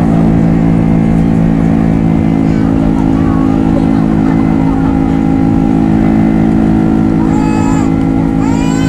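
Cabin noise of a Boeing 767-300ER in its climb after takeoff: the engines' steady drone, with a constant low hum, over the rush of air past the fuselage.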